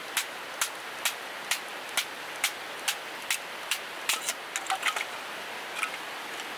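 Kindling being split from a small softwood board on a wooden stump with a knife. Sharp wooden knocks come at an even pace of about two a second, then a short clatter of split sticks a little past halfway, over a steady background hiss.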